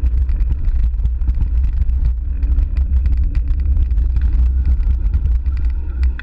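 Mountain bike rolling over a bumpy dirt path: a heavy low rumble of wind and road noise on the camera's microphone, with frequent small rattles and clicks from the bike.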